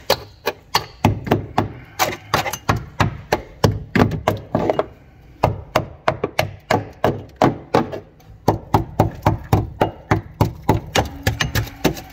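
Small hammer tapping repeatedly on the rust-eaten steel footwell floor of an Opel Manta, knocks about three a second with two short gaps, probing for rot: the metal is soft with rust and needs welding.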